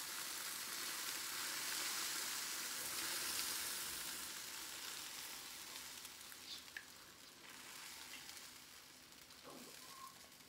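Beaten egg mixture sizzling as it hits the hot plates of a preheated waffle iron, a steady hiss that fades gradually over the seconds as the batter settles.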